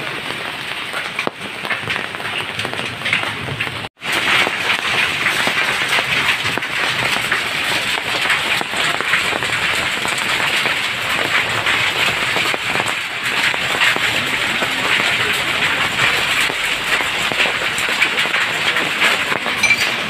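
Heavy rain mixed with small hailstones falling on the ground, a dense steady hiss full of fine ticks. It cuts out briefly about four seconds in and comes back a little louder.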